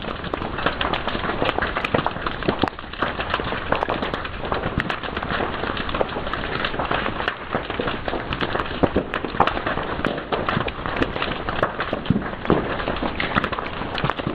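Fire crackling and popping: a dense, continuous run of sharp snaps over a steady hiss.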